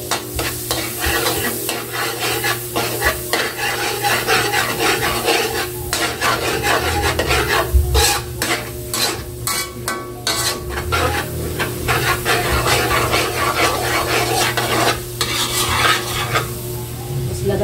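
Margarine sizzling as it melts in a large aluminium wok, while a metal ladle stirs and scrapes around the pan with frequent clinks of metal on metal.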